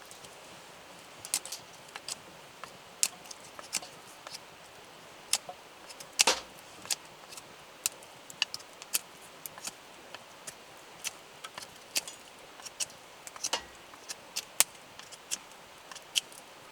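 Campfire crackling: irregular sharp pops and snaps of burning wood, about one or two a second with a louder snap about six seconds in, over a faint steady hiss.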